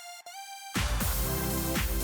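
Electronic background music: a thin synth melody, then under a second in the full track drops in with deep bass and a steady beat, much louder.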